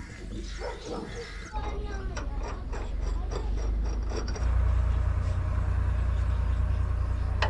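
Small metallic clicks and scrapes of a truck's diesel fuel filter housing being handled and unscrewed by hand, over a steady low rumble that starts about a second and a half in and grows louder about four seconds in.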